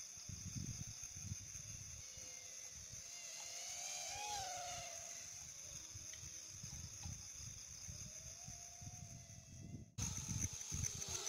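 Outdoor ambience: wind buffeting the microphone in uneven gusts under a steady high insect drone, with a faint wavering whine rising and falling about four seconds in. The sound cuts off abruptly near the end and comes straight back.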